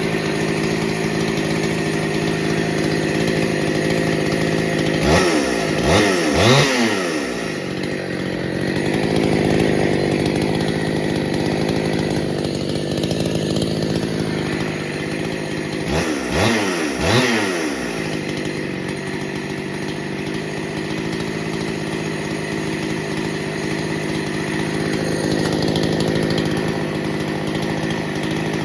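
Rebuilt Husqvarna 268 two-stroke chainsaw idling steadily. It is revved in two sets of about three quick throttle blips, around five seconds in and again around sixteen seconds in.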